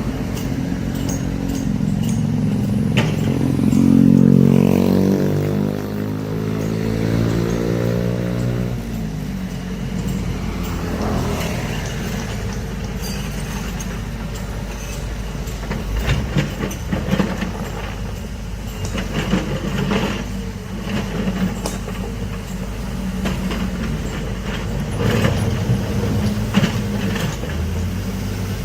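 Heavy diesel engine of a large excavator running, swelling to its loudest about four seconds in and then its pitch falling away over the next few seconds. Irregular metal clanks and knocks join in over the second half.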